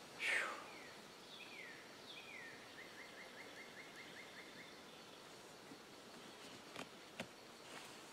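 Quiet woodland background with a songbird singing: a few short falling notes, then a quick even trill of about ten notes, about five a second. There is a brief rustle at the start and two faint clicks near the end.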